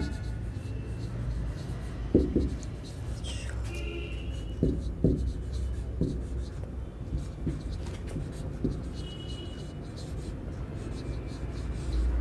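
Marker pen writing on a whiteboard: a run of short scratching strokes with a few brief high squeaks, and several sharp knocks of the marker on the board, the loudest about two seconds in and around five seconds in. A low steady hum runs underneath.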